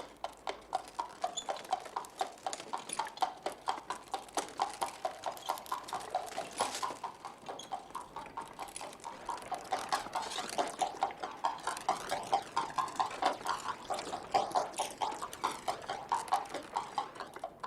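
Horse's hooves clip-clopping at a quick, steady trot as a horse-drawn cab sets off and travels.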